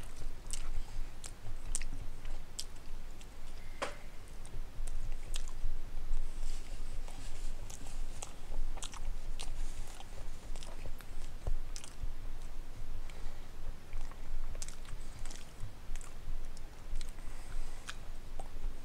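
A person chewing a mouthful of pepperoni pizza close to a microphone, with irregular mouth clicks and smacks throughout.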